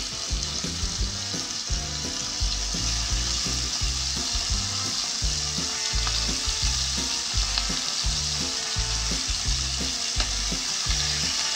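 Thin strips of seasoned beef sizzling steadily in hot oil in an enamelled frying pan as more pieces are added.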